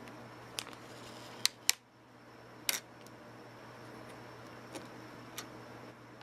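Sharp clicks and snaps of small metal and plastic parts as the motherboard's CPU socket hardware is handled: a pair of loud clicks about a second and a half in, another a second later, and fainter ticks around them, over a steady low hum.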